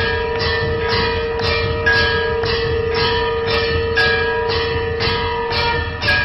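Temple aarti bells and gongs struck in a steady rhythm, about two strokes a second, each stroke ringing on, over a long steady held tone that changes pitch near the end.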